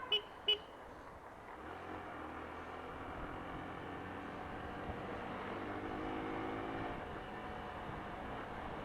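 Two short vehicle-horn beeps about a third of a second apart, then motorcycle engine and road noise while riding in traffic, with the engine note rising about five seconds in.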